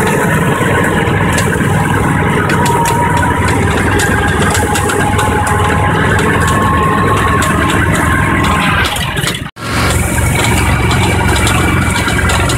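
Tracked Argo ATV engine running steadily, with a wavering whine over it. The sound cuts out for an instant about nine and a half seconds in, then resumes.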